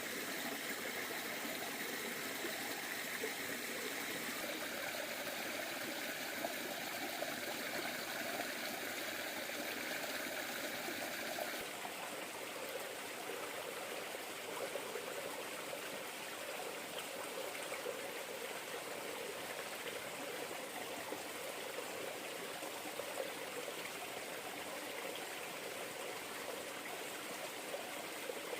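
River water flowing and trickling steadily, with an abrupt change in its sound about twelve seconds in.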